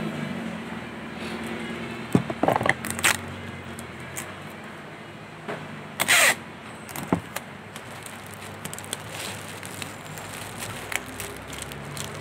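Cellophane gift wrap crinkling in short crackly bursts as it is handled, the loudest burst about six seconds in, over a steady background hum.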